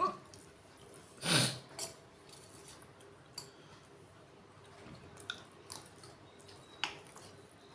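A person hiccuping once, a short sudden "hic" about a second and a half in, with a few faint clicks and taps around it.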